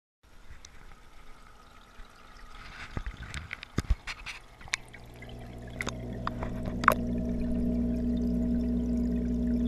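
Water trickling and splashing with sharp clicks and knocks as a GoPro in its waterproof housing is handled and lowered into an aquarium. From about halfway a steady low hum with several tones comes through the water.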